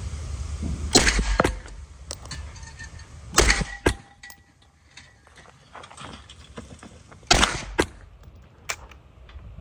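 Sharp metallic clacks and lighter clicks of a gun being handled. The loudest come in two pairs about half a second apart, a little past a third of the way in and again about three-quarters through, with a single clack about a second in.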